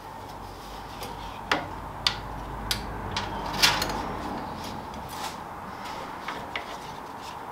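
Canvas webbing strap being pulled through and fastened with its metal buckle around a shovel handle held in brackets on a metal body panel: a string of sharp clicks and knocks from the buckle, handle and bracket, with the strap rubbing, the loudest knock just past halfway.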